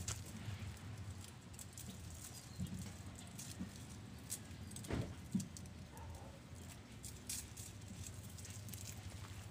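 Scattered light clicks, taps and rustles of hands working wire and cord on a concrete fence post, with a couple of soft thumps about five seconds in, over a low steady outdoor rumble.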